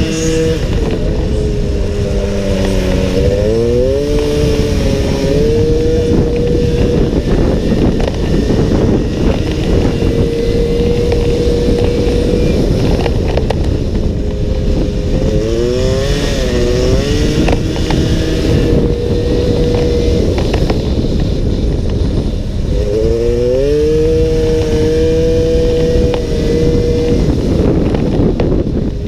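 Small racing motorcycle engine at full throttle heard from an onboard camera, with heavy wind buffeting on the microphone. Its pitch drops and then climbs back up three times, holding a steady high note in between.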